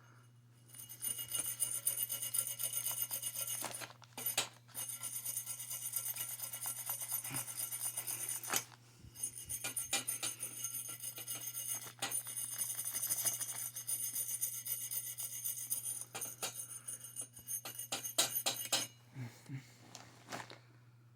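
Wire brush scrubbing the inside of a copper pipe fitting in quick continuous strokes: a scratchy, jingling metallic rasp that stops briefly a few times and ends with a few single strokes, over a low steady hum. The metal is being cleaned bright so that solder will take.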